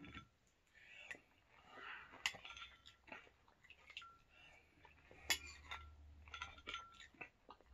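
Metal spoon clinking against a ceramic cereal bowl, with sharper clinks about two seconds and about five seconds in and lighter ticks between, along with sipping of milk from the bowl.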